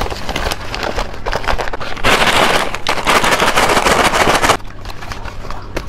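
Paper shaker bag crinkling as a plastic packet of braised beef is emptied into it. The bag is then shaken hard for about two and a half seconds, its crispy rice crackers and twisted dough sticks rattling and crackling inside.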